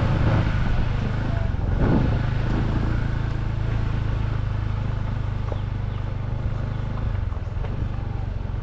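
Motorcycle engine running steadily at an even pitch while riding, with a louder rush of road and wind noise in the first two seconds.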